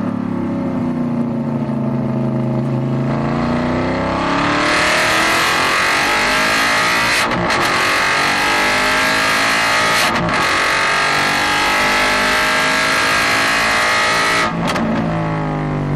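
Aston Martin GT4 race car's V8 engine heard from inside the cockpit, accelerating at full throttle with its note rising through the gears, and two quick upshifts about seven and ten seconds in. Near the end the throttle lifts sharply for braking and the engine note falls.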